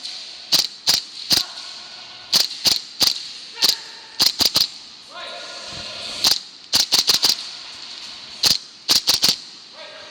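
Airsoft gun firing single shots, about twenty sharp cracks in quick groups of two to five with short pauses between.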